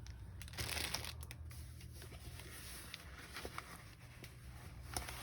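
Plastic packaging of a diamond painting kit crinkling and rustling as it is handled, loudest about half a second to a second and a half in, then lighter rustles and small clicks.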